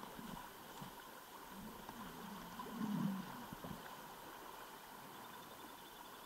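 River current flowing steadily over a shallow, riffled run. About three seconds in, a brief low wavering sound rises over it and is the loudest moment.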